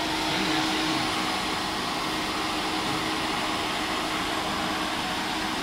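Semi-automatic squeegee grinder running with its suction vacuum on: a steady rushing machine noise with a steady low hum underneath.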